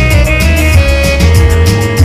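Instrumental break of a pop song with a steady drum beat, bass and held instrument notes, no singing.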